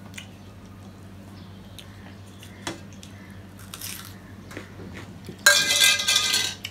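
Hands mixing rice and curry on stainless-steel plates: scattered soft clicks and squelches over a faint steady hum. Near the end a loud noisy rush lasts about a second.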